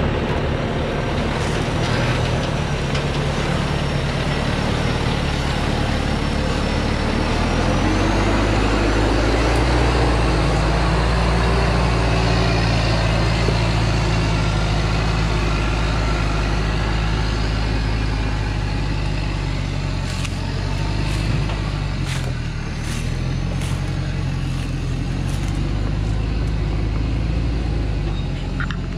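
Diesel engine of a Thaco Forland truck loaded with acacia logs, labouring as it climbs a steep dirt track; the engine note rises and grows louder about eight seconds in, then holds steady. Several sharp knocks are heard about twenty seconds in.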